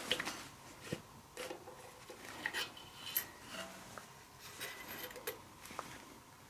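Faint, scattered metal clicks and clinks from an ATE brake master cylinder's spring-loaded piston and coil spring being drawn out of the bore by hand, some clinks ringing briefly.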